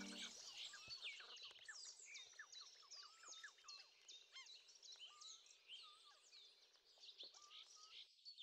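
Faint chorus of small songbirds chirping and twittering, many short quick calls overlapping with rapid sweeps in pitch.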